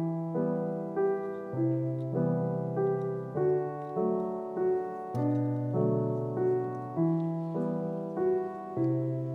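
Background music: a gentle piano-style tune, with notes struck about twice a second and each fading away.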